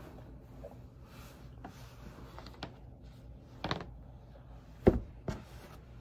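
Soft rustling of cloth being handled, then a sharp thump about five seconds in and a lighter knock just after, as a folded length of fabric is set down on a cutting mat.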